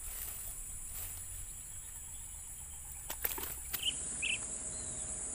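Steady high-pitched drone of insects, with a few sharp clicks a little after three seconds in and two short chirps soon after.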